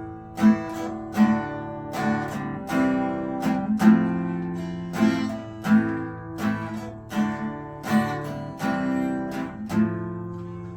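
Acoustic guitar strummed in a steady rhythm, about one strum every 0.7 seconds, with the chord changing every few strums: the instrumental intro to a song.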